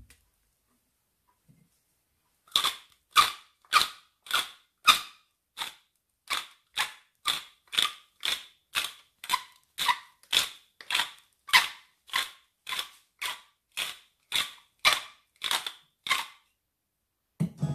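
Salt shaker shaken over a raw whole chicken in short, sharp rattles, about two a second, with a brief pause about five seconds in.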